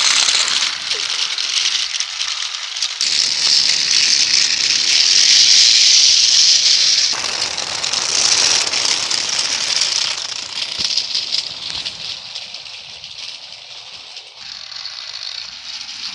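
Toy train and trucks rolling along plastic track, a continuous rattling clatter that swells and fades and grows quieter after about twelve seconds.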